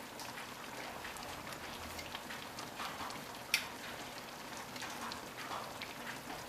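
Marsala wine sauce with chicken and mushrooms sizzling and bubbling in a skillet, a steady faint crackle, as the flour-coated chicken thickens the sauce. One sharper click about halfway through.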